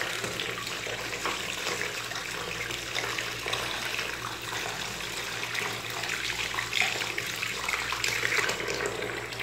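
A faucet running a thin stream of water into a plastic tub of foamy bath water, the stream splashing over a hand that crumbles a bubble bar under it. Steady running-water sound.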